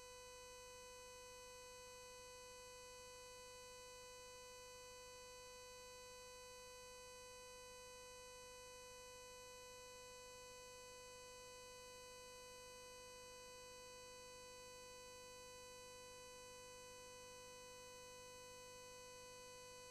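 Near silence apart from a faint, steady electrical hum: one constant tone with a row of higher overtones, unchanging throughout.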